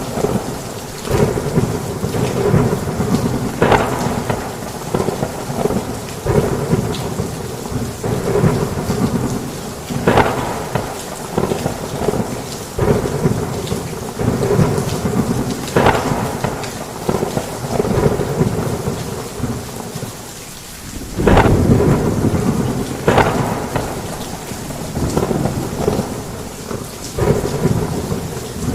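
Heavy rain falling on a roof, a dense steady hiss, with thunder cracking every second or few. After a short lull about twenty seconds in, a sudden loud clap.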